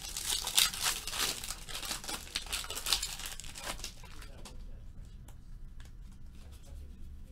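Foil wrapper of a football trading card pack being torn open and crinkled for about four seconds, followed by fainter rustling and light ticks as the stack of cards is handled.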